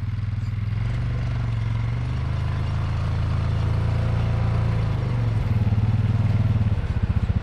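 ATV engine running under load and revving, getting louder about two-thirds of the way through, as the quad works to climb out of frozen snow ruts.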